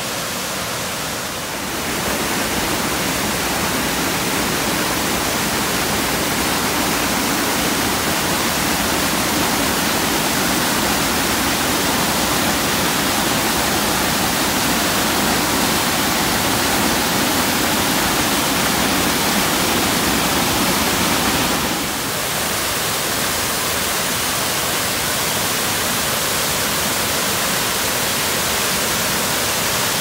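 Large waterfall pouring heavily over a rock ledge: a steady, loud rush of falling water, stepping up a little about two seconds in and easing slightly about 22 seconds in.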